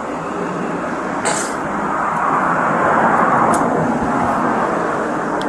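Road traffic noise: a vehicle passing, its noise swelling to a peak midway and then fading. There is a brief high hiss about a second in.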